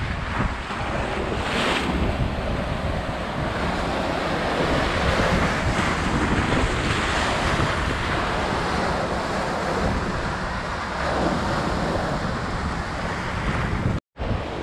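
Small waves breaking and washing up onto a sandy beach, mixed with wind buffeting the microphone. The sound cuts out for a moment near the end.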